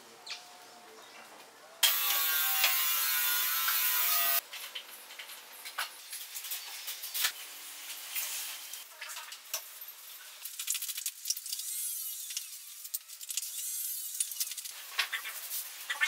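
Pencil scratching over a wooden board as a shape is sketched, with short scratchy strokes and light clicks of hand and tools on the bench. About two seconds in, a loud harsh noise lasts about two and a half seconds and then cuts off suddenly.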